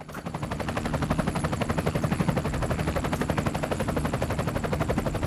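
Toy police helicopter's electronic rotor sound effect: a rapid, even chopping that starts abruptly and keeps going.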